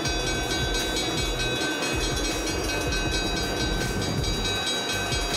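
Train running over snowy track: a steady mechanical rumble with a constant high whine.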